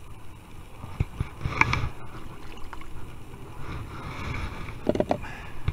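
A few scattered knocks and handling noises against a kayak while the angler works with bait and tackle on board, over a low steady background.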